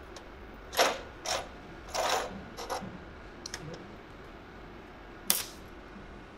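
Small metal parts clinking and knocking as they are handled and set down: a cluster of sharp clinks in the first three seconds and one last loud clink about five seconds in.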